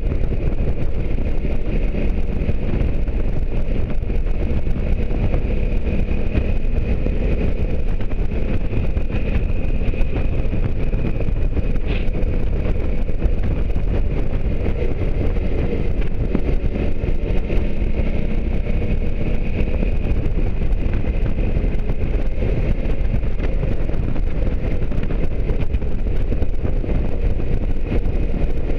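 Motorcycle riding at a steady cruising speed: the engine running evenly under heavy wind rumble on the bike-mounted microphone.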